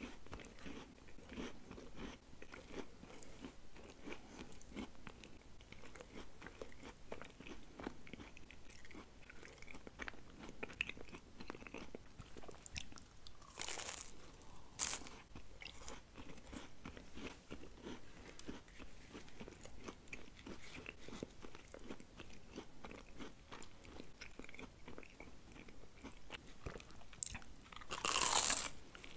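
Close-miked chewing of breaded chicken nuggets: steady soft, wet chewing with crisp, crunchy bites about halfway through, again a second later, and near the end.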